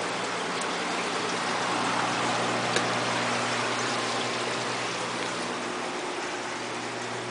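Reef aquarium sump and filtration running: steady water splashing and trickling with a low hum from the pumps. A single small click about three seconds in.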